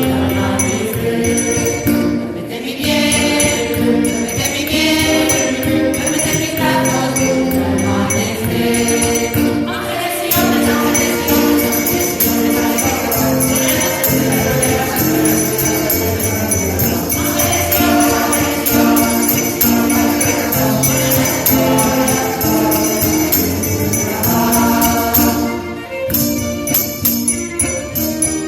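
A mixed amateur choir singing a Spanish villancico (Christmas carol), with jingling percussion throughout and a run of short percussion strikes near the end.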